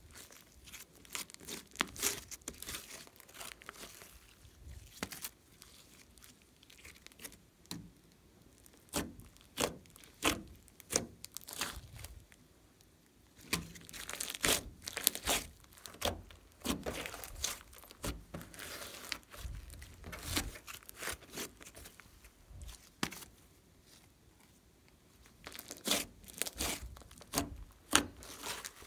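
Hands squeezing, kneading and poking a large lump of slime mixed with clay, with irregular clusters of small pops and clicks as trapped air is pressed out, and brief quieter pauses between handfuls.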